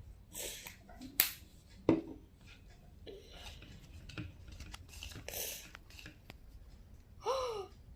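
Homemade slime being stirred in a container: scraping swishes and sharp taps of the stirrer against the container, with two loud clicks about a second and two seconds in. A brief falling voice-like sound near the end.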